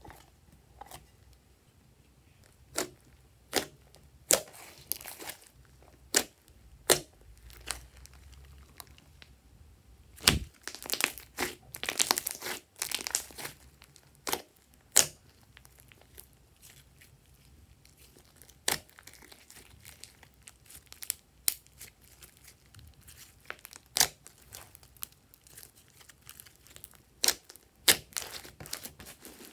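Hands squishing and pressing a large mass of glossy slime on a tabletop: irregular sharp pops and crackles as it is squeezed, with a busier run of them about a third of the way in.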